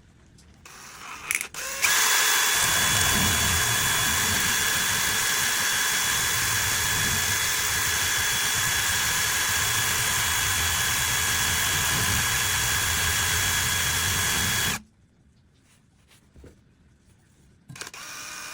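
Power drill running at a steady speed for about thirteen seconds, with a constant whine over a noisy grinding hiss, then cutting off suddenly. A few clicks come just before it starts.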